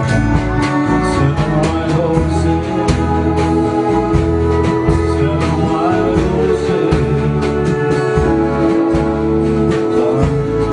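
A man singing into a microphone while playing an acoustic guitar, with long held notes over the steady strumming.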